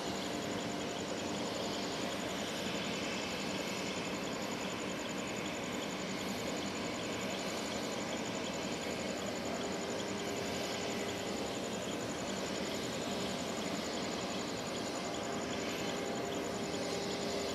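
Steady outdoor background noise: an even hiss with a faint steady hum and a high, rapid insect trill running through it.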